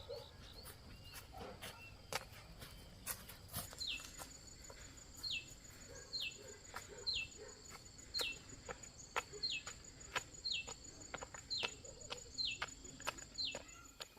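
A bird calling repeatedly, a short downward-sliding whistle about once a second from about four seconds in, over a steady high insect drone, with scattered sharp clicks throughout.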